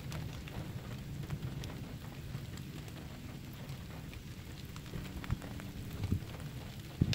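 Steady rain falling, with many scattered sharp drop taps and a few louder ones near the end.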